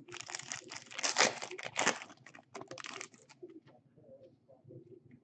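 A trading-card pack's wrapper being torn open and crinkled, in two loud bursts of ripping and rustling over about three seconds.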